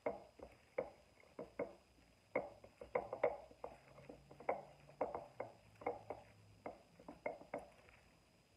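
Hands tossing raw shredded cabbage, carrot and greens in a glass mixing bowl: crisp rustling and crunching in quick, irregular strokes, about two or three a second, which thin out near the end.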